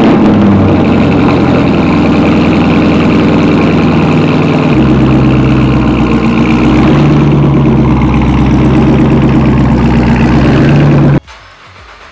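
Chevrolet Camaro ZL1's supercharged V8 cold idling, fast and loud just after start-up, its note deepening about five seconds in. The sound cuts off abruptly about eleven seconds in.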